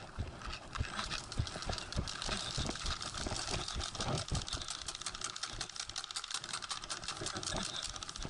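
Paintball markers firing rapid strings of sharp pops, densest from about two seconds in, over heavier thumps of footsteps through grass.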